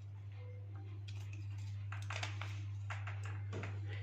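A steady low electrical hum, with a few light clicks and taps scattered through it as small parts are handled.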